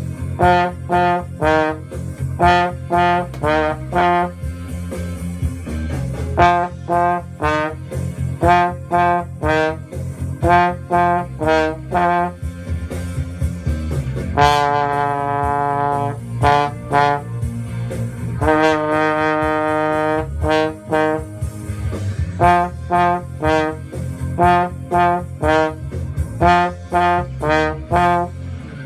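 Trombone playing a lively tune of short, detached notes in a quick rhythm, with two long held notes about halfway and two-thirds through, over a steady low accompaniment; the music stops at the end.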